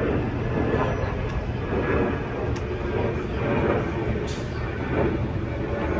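Steady, noisy rumble of an Airbus A320neo jet airliner with Pratt & Whitney geared turbofan engines flying high overhead, swelling and easing a little about once a second.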